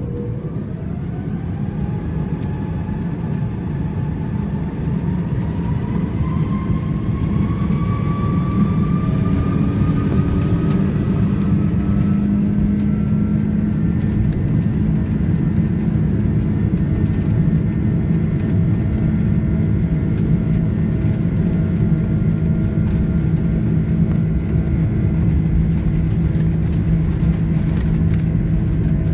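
Cabin noise of a Cathay Pacific Airbus A330 at takeoff power, its Rolls-Royce Trent 700 engines whining: several tones climb in pitch over the first dozen or so seconds, then hold steady over a loud, dense rumble. Faint rattles come through near the end.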